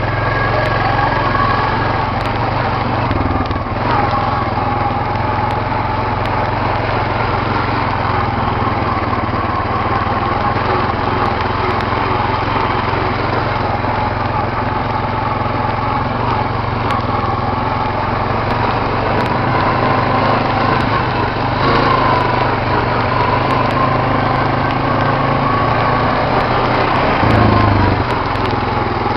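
Quad (ATV) engine running steadily while riding, its pitch shifting a little a few times as the throttle changes, with a brief surge near the end.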